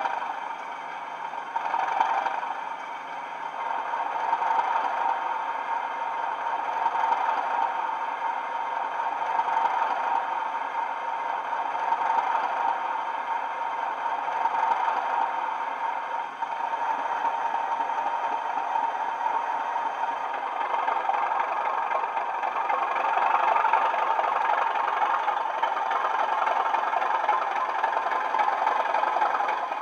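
Bachmann Class 37 model locomotive's factory DCC sound decoder playing a Class 37 diesel engine running, through a pair of small 20x20x7 speakers. The sound is steady and thin, with no deep bass, and grows a little louder in the last few seconds.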